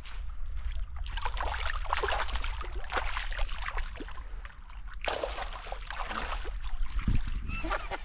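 Water sloshing and trickling close by, an irregular crackling wash that eases briefly about halfway through, over a steady low rumble.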